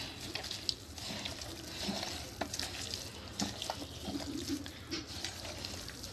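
A bare hand squishing and turning raw beef marinade (meat, sliced onions, herbs and spice paste) in a pressure cooker pot: irregular wet squelching with small scattered clicks.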